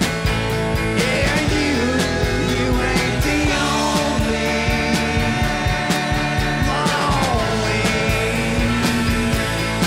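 A rock band playing live: drum kit with regular beats and cymbals, electric bass, guitars and keyboard, with a lead melody line that slides between notes over the top.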